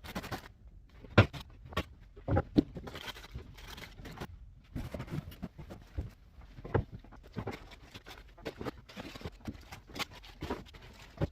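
Handling noise from restocking a snack vending machine: irregular knocks and clicks with rustling of packets, the sharpest knock about a second in.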